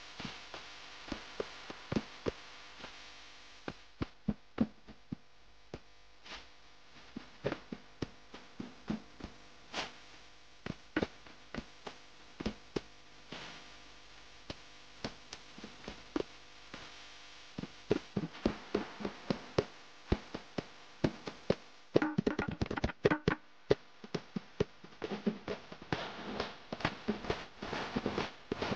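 Irregular light clicks and taps of hands working over a cake on a metal turntable while gold sugar pearls are set one by one into the frosting; the taps come thicker and louder in the last few seconds.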